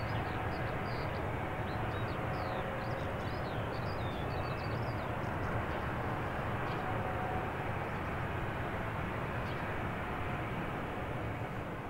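Boeing 737-700's CFM56-7B jet engines running at idle while the airliner taxis: a steady rush with a low rumble. Small birds chirp in the first half.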